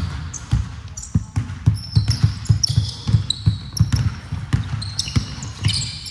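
Basketball play on a hardwood court: a ball bouncing in quick irregular thumps, with sneakers squeaking in short high chirps as players cut and stop.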